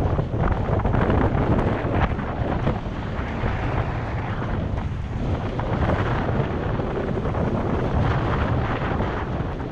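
Steady wind buffeting the microphone on the deck of a sailing catamaran under way, over the rush of the sea along the hulls.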